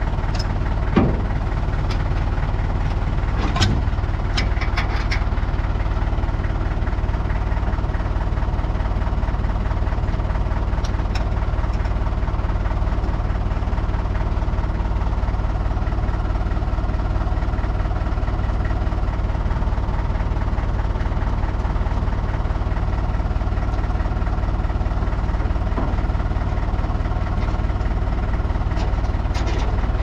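Tractor engine idling steadily, with a few short metal clicks and clanks as a rear-mounted snowblower is unhooked from the hitch, a cluster in the first five seconds and another near the end.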